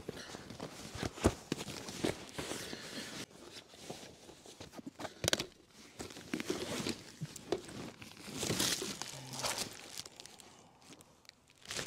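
Rummaging through gear in a car's back seat: irregular rustling and crinkling of plastic bags and packaging, with scattered knocks and clicks.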